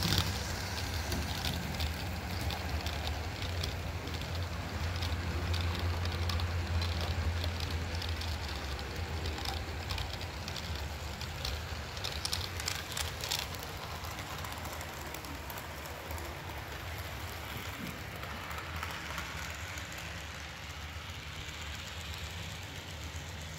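HO scale model freight train rolling past on its track: a steady low hum with rapid clicking of the small metal wheels over the rail joints. The sound is strongest in the first half and fades as the cars go by.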